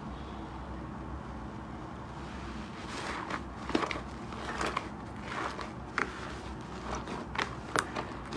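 Slime being handled and squished: after a few seconds of steady faint hiss, a run of irregular sticky crackles and pops.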